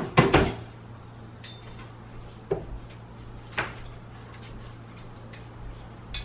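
Metal tripod stand of a ring light knocking and clattering as it is carried and handled: a sharp double knock just after the start, then a few lighter taps. A steady low hum runs underneath.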